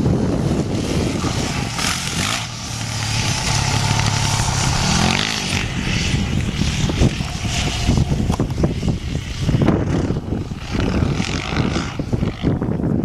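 Yamaha WR426F dirt bike's four-stroke single-cylinder engine running under load around a dirt track, its note rising and falling as the rider works the throttle, with one clear rev-up about five seconds in.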